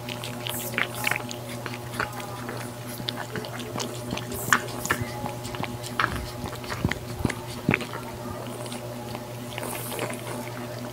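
Cats eating from bowls close to the microphone: irregular wet clicks of chewing and licking over a steady low hum.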